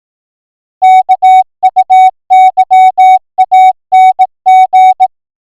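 Morse code (CW) tone: one steady pitch keyed on and off in quick dots and dashes, starting about a second in.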